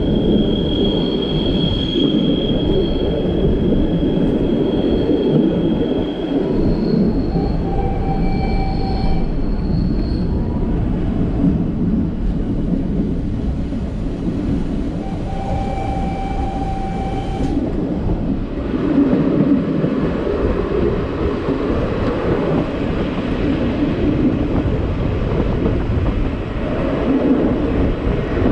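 Le Petit Train Jaune, a metre-gauge electric train, running steadily along the track with a continuous rumble from the wheels and cars. Thin high wheel squeals come and go during the first half.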